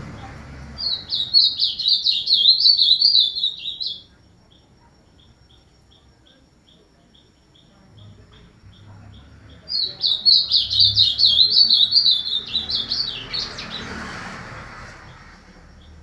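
Ultramarine grosbeak (azulão) singing two fast warbling phrases of about three seconds each, several seconds apart.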